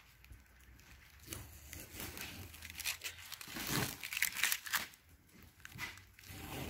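Masking tape being peeled off a painted bumper and scrunched up in the hand, making irregular crackling and tearing rustles.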